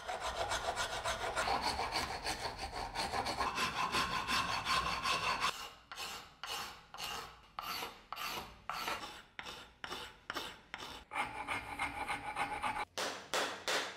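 A hand rasp scraping a hornbeam axe handle into shape. Quick back-and-forth strokes run for about five seconds, then slower separate strokes come about two a second, then quick strokes again near the end.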